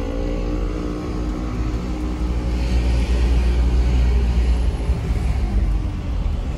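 Mitsubishi Canter minibus's diesel engine running with road rumble, heard from inside the cab while driving, growing louder about two and a half seconds in.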